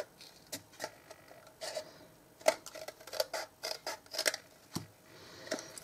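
Cardstock box piece being handled and corrected by hand: scattered light clicks and rustles of stiff paper.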